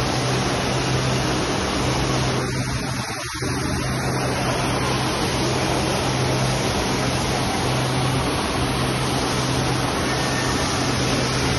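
Steady rush of water from an artificial rock waterfall and flowing lazy-river water, with a steady low hum underneath. The rush briefly thins out about three seconds in.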